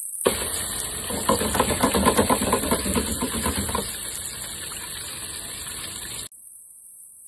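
Chicken wings deep-frying in a wire fryer basket: hot oil bubbling and crackling, busiest for the first few seconds and then easing. The sound cuts off suddenly about six seconds in.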